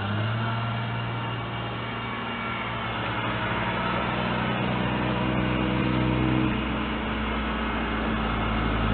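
Engine running with a steady low drone; its pitch shifts slightly about six and a half seconds in.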